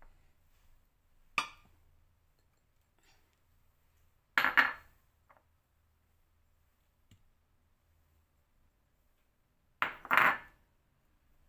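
Kitchen handling sounds: a small click about a second in, then two short clatters of dishes being handled, about four and ten seconds in, with quiet between.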